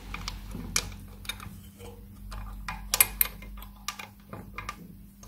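Steel gears and a selector fork clicking and clinking as they are worked by hand into a Triumph Trident T160 gearbox casing: a string of irregular light clicks, with a sharper pair about three seconds in. The gear is not yet seated fully home.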